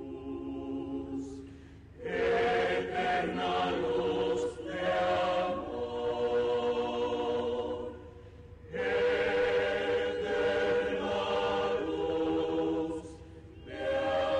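Mixed choir of men's and women's voices singing a habanera unaccompanied. It begins with a soft held chord. From about two seconds in it sings loud full phrases, broken twice by brief quieter moments.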